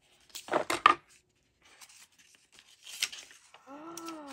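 Cardboard and paper handling as the lid of a rigid cardboard journal box comes off: a loud scraping rustle about half a second in, then lighter rubbing and rustling of card and paper. Near the end a voice gives a short drawn-out 'ooh'.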